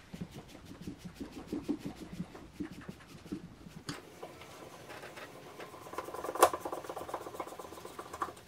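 Phillips screwdriver driving a short screw through a metal bracket into a plastic grommet nut: a rapid run of small scratchy clicks that grows busier about halfway through, with one sharper click.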